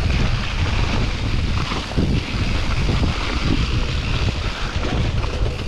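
Wind buffeting the microphone on a moving mountain bike, with the rumble of the ride and scattered knocks from the bike over rough ground.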